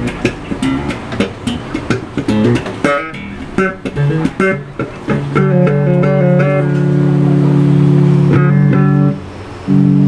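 Five-string electric bass played through an amplifier: a quick run of short, percussive plucked notes, then from about five seconds in a long held low note that stops briefly near the end before another held note.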